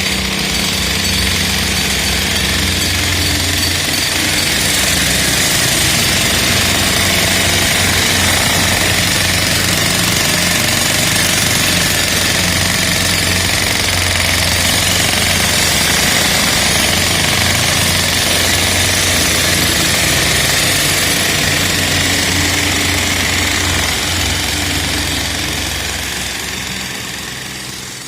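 Electric demolition breaker hammer chipping concrete: rapid, continuous hammering with a steady low hum underneath, fading out over the last few seconds.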